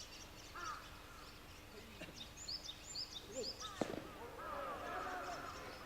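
Birds calling outdoors, with short high chirps and several calls that swoop in pitch, and one sharp crack a little under four seconds in.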